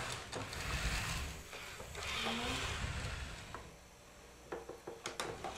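Nao humanoid robot's joint motors whirring as it swings its arm out in a pushing gesture, with a short rising whine about two seconds in and a few small clicks near the end.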